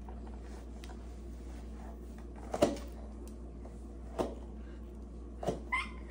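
Light knocks and pats as a toddler handles woven placemats and pats them against a tile floor beside an open drawer, the loudest about two and a half seconds in, over a steady low hum. A brief high squeal from the child near the end.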